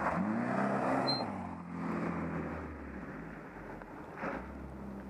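A rally car's engine, at high revs, passing close on a gravel stage. Its pitch climbs sharply right at the start and then holds, loudest in the first couple of seconds, then fades as the car moves away.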